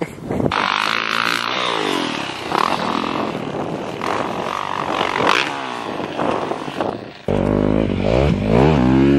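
Dirt bike engine revving, its pitch rising and falling as the bike rides a hill trail. About seven seconds in the sound cuts abruptly to a louder dirt bike, also revving up and down.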